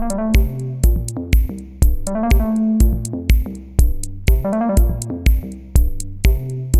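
Electronic dance music: a steady four-on-the-floor kick drum about twice a second under a stepping synthesizer melody and hi-hats.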